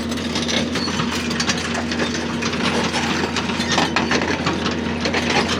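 Hitachi hydraulic excavator's diesel engine running steadily, with irregular clicks and knocks of stones and metal as it carries an air compressor hung from its bucket.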